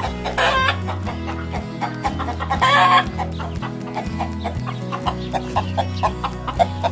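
Chickens clucking in short repeated notes, with two louder, longer squawking calls near the start and about two and a half seconds in, over background music with a steady bass line.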